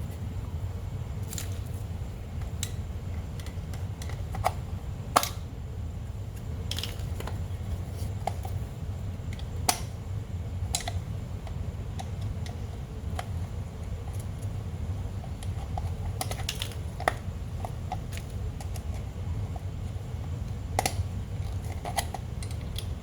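Scattered light clicks and taps of small parts being handled while an electric cooling-fan motor is put back together, over a steady low hum.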